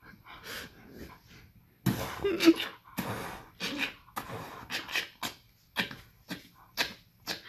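A dog making short, irregular breathy vocal noises while biting a toy ball held in a person's hand, loudest about two seconds in.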